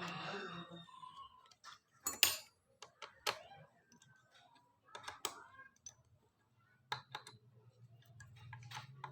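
Irregular sharp metallic clicks and taps, a second or more apart, from tools working on an electric wood planer's knife assembly.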